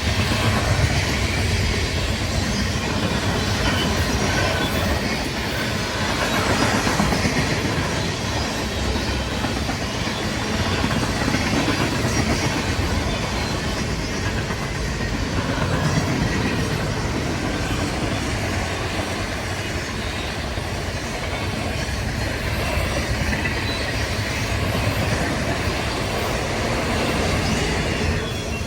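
A train rolling past on the rails, its cars' wheels making a steady, loud rumble.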